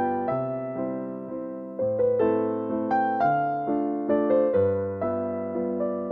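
Background music: a gentle keyboard tune in a piano sound, notes and chords struck a few times a second, each fading after it is played.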